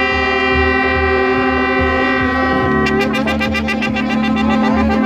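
Several shofars (ram's horns) blown together in long held notes. About three seconds in, the pitches shift and a rapid quavering blast joins.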